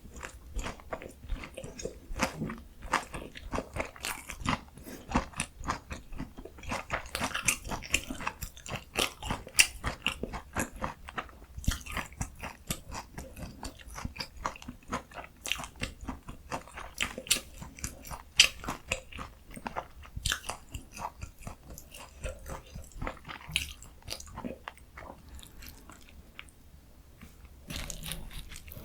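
Close-miked biting and chewing of a breaded, deep-fried Korean pork cutlet (donkkaseu) topped with kimchi and cheese: a dense run of sharp, crackly crunches from the crust.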